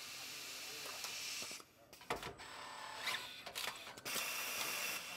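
Assembly-line robot and its clamping fixture at work: a steady mechanical hiss with a cluster of sharp clicks and clacks in the middle, cutting out briefly twice.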